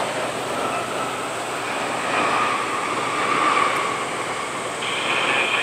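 Jet airliner engines giving a steady rushing roar with a faint high whine over it; the whine grows brighter suddenly near the end.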